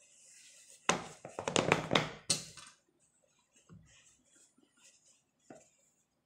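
Gloved hands struggling with a tight-fitting wand box: a burst of scraping and knocking as the lid is worked at, then a single low thump and, a little later, a short knock.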